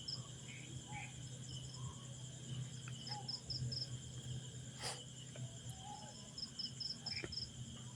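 Faint insects chirping in the background: a steady high hum, with short groups of rapid chirps about every three seconds. A single sharp click comes about five seconds in.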